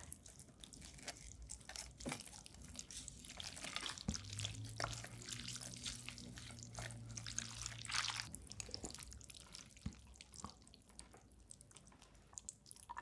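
Liquid dripping from food being lifted out of broth, with small clicks and taps of utensils against dishes, most likely chopsticks in a bowl of cold buckwheat noodles in slushy iced broth. A low steady hum runs through the middle of the clip.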